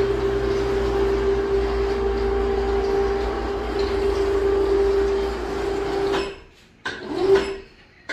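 Motor of a home-built attic lift running with a steady hum as it raises the basket into the ceiling opening. It stops about six seconds in as the basket reaches the top, followed by a couple of knocks and a short tone rising in pitch.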